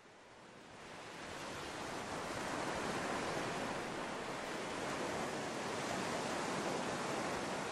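A steady, even rushing noise, fading in over about the first two seconds.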